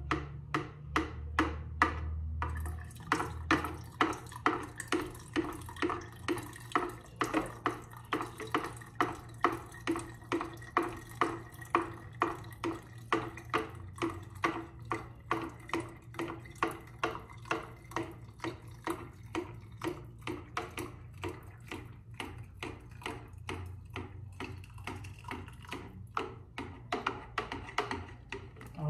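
Cold water poured from a plastic jug through a funnel into a plastic gallon jug, glugging in a regular rhythm of about two pulses a second.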